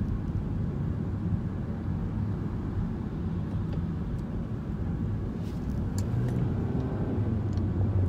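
Steady low rumble of a car heard from inside the cabin, with a few faint clicks in the second half.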